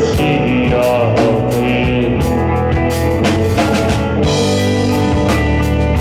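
Live rock band playing an instrumental passage: semi-hollow electric guitar and bass guitar over a drum kit keeping a steady beat, with brighter cymbal wash from about four seconds in.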